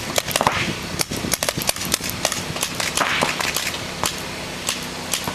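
Paintball markers firing reballs: a rapid, irregular string of sharp air-powered pops, several a second, thickest in the first two seconds and sparser after.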